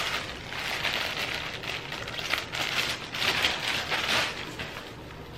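Packaging rustling and crinkling in irregular bursts as a clothing parcel is handled and opened.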